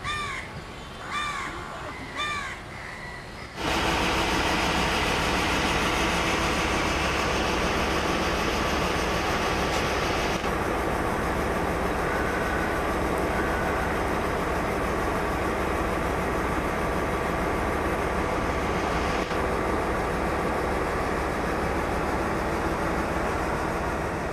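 A crow cawing about four times. About three and a half seconds in, a loud steady rushing noise with a faint hum in it starts suddenly and carries on, losing some of its hiss about ten seconds in.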